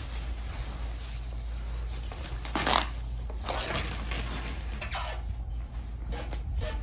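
Handling noise from unboxing: a few short rustles and light knocks as the speaker and its packaging are moved about, over a steady low hum.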